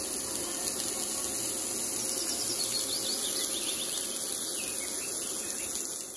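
Mutton kofta patties frying in butter on a hot grill pan: a steady crackling sizzle.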